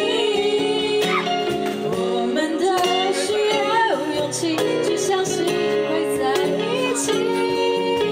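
Live band song: a woman singing into a microphone over electric and acoustic guitar chords, with hand-played cajon hits keeping the beat.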